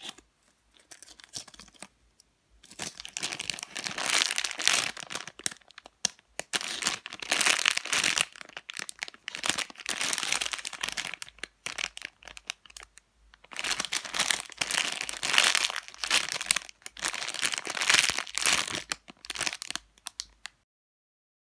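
Crinkling and crackling of a squishy toy's plastic packaging as it is handled and opened, in several long bursts with short pauses between them, stopping abruptly near the end.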